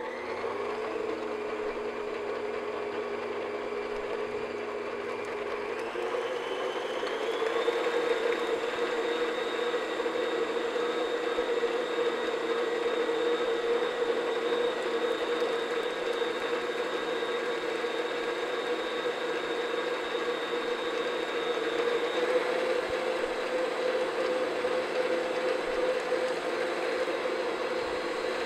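Stand mixer motor running steadily with its flat beater turning through cake batter as whole eggs are beaten in one at a time. The whine steps up a little in pitch and loudness about six to eight seconds in.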